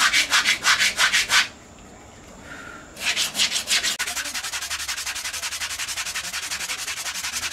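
Sandpaper rubbed by hand over a carved wooden elephant statue in fast back-and-forth strokes, about six a second. The strokes stop for about a second and a half, then start again and go on more softly from about four seconds in.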